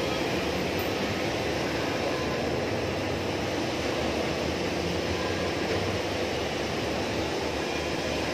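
Steady mechanical hum and rushing noise that does not change.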